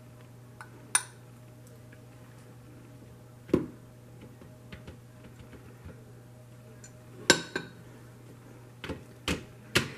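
A metal spoon clinking and scraping against a glass measuring cup as thick melted candy melts are scooped out, with scattered sharp clinks and knocks, the loudest about three and a half seconds in and again about seven seconds in, and a few more close together near the end. A faint steady hum lies underneath.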